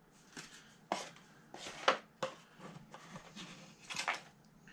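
Cards and paper packaging being handled in a cardboard box: about five short rustles and taps, the loudest about two seconds in.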